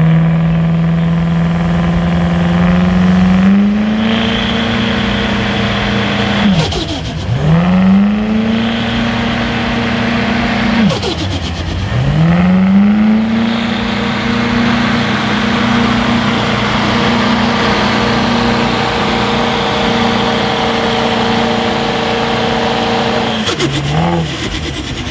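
GMC Sierra pickup's Duramax 6.6-litre V8 diesel pulling a weight sled at full load, holding high steady revs. Twice the revs drop sharply and climb straight back. Near the end the engine falls away as the pull ends.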